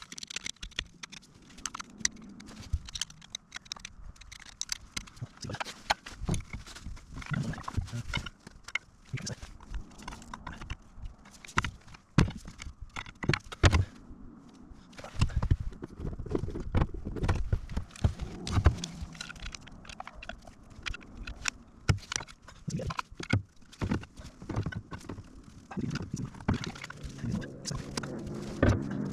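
A run of irregular knocks and clicks, sometimes several a second, of hands-on work with tools on the machine. Near the end a low, steady mechanical hum rises.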